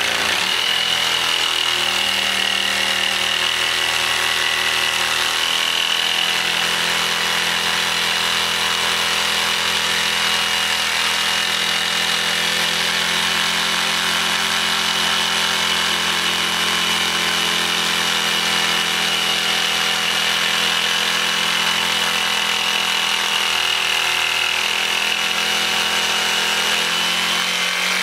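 Electric jigsaw running steadily while cutting through an oak board, a constant high whine over the motor hum and the rasp of the blade.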